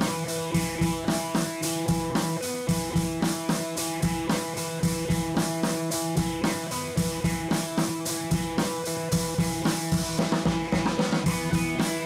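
Background music with a steady drum-kit beat, about two hits a second, under sustained guitar chords. A busier run of drum hits comes about ten seconds in.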